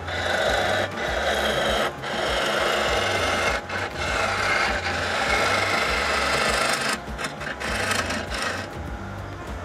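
Turning gouge cutting into a spinning wooden spindle on a wood lathe: a continuous rasping hiss of shavings being peeled off. It breaks off briefly a few times as the tool is repositioned, then eases to a lighter cut after about seven seconds.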